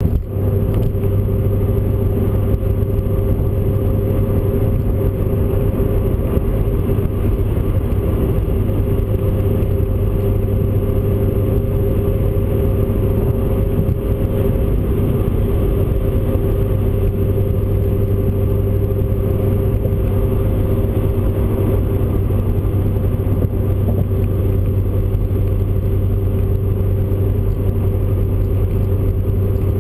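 In-cabin sound of a V8 sports car cruising at a steady highway speed: a constant low engine and exhaust drone with road noise, holding one pitch throughout with no revving.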